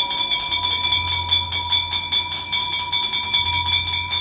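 Bell-like ringing held on steady tones and pulsing rapidly and evenly, with a low hum that drops out and returns.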